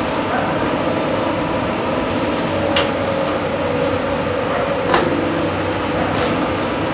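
A JCB tracked excavator's diesel engine and hydraulics running steadily under digging load, with a whine that drifts slightly in pitch as the boom and bucket work. Two sharp clanks come about three and five seconds in.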